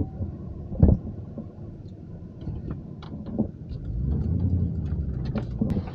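Vehicle engine rumbling low, with scattered knocks and rattles and one loud thump about a second in; the rumble grows louder about four seconds in.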